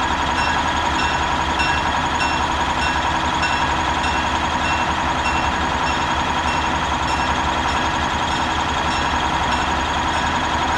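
EMD GP7 diesel locomotive, its 16-cylinder two-stroke 567 engine running steadily as it rolls slowly, with a high ringing struck about twice a second, typical of its bell.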